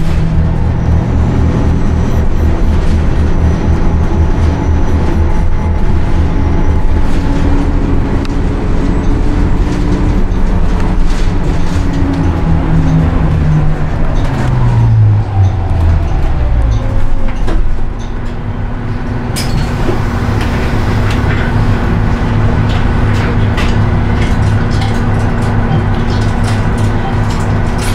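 Cummins ISL-G natural-gas engine and ZF EcoLife six-speed automatic of a Nova Bus LFS, heard from inside the passenger cabin while the bus is moving. The engine note holds steady, then falls away over a few seconds about halfway through, and settles into a lower, steady drone.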